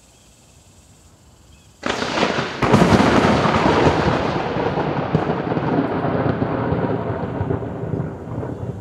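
A deafening close thunderclap: a sudden crack about two seconds in and a second, sharper crack just after, then rumbling that slowly fades.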